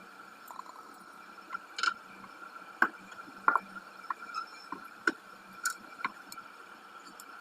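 Irregular light taps and clicks of hands working homemade clay and setting down small tools on a work surface, over a steady faint hum.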